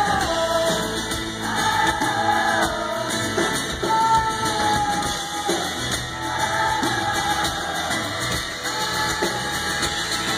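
Live rock band performing: a woman sings long held notes over guitar and drums.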